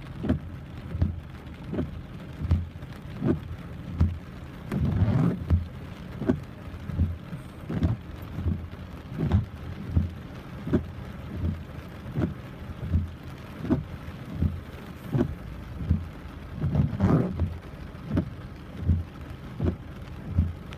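Heavy rain falling, with a regular low thud about every two-thirds of a second and two longer, louder swells of splashing.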